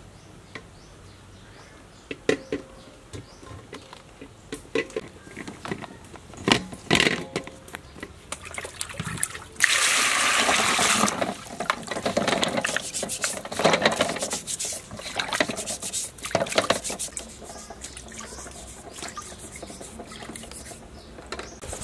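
Pink-coated century duck eggs being washed in a stainless-steel bowl. The eggs click and knock lightly as they are handled for the first several seconds. About ten seconds in, water pours over them for a second or so, followed by bursts of splashing as they are rinsed.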